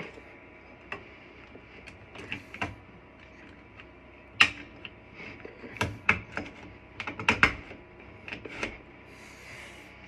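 Plastic clicks, knocks and scrapes as a smoke detector head is twisted and locked onto its ceiling mounting base. The clicks are scattered and irregular, with the sharpest about four and a half seconds in and a cluster between about six and nine seconds.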